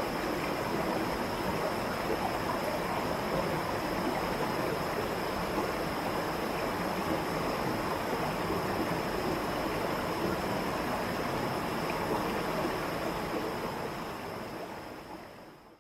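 Waterfall: a steady rush of falling water, fading out over the last couple of seconds.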